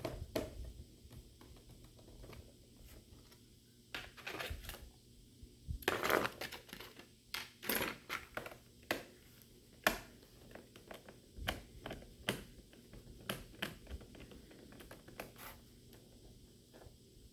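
HP 255 G4 laptop being handled and taken apart by hand: scattered clicks and taps of its plastic casing and tools, with a few short scrapes about six and eight seconds in.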